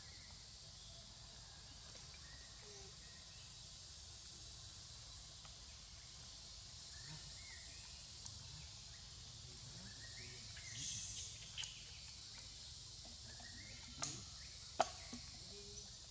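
Steady high-pitched drone of forest insects, with a few faint chirps. A handful of sharp clicks come in the second half, the loudest near the end.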